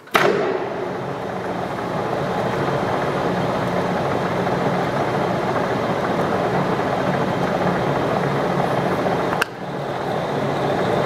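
Metal lathe starting up suddenly and running steadily under a single-point threading pass on a small brass ring. About nine and a half seconds in there is a sharp click and a brief dip in level, then it runs on.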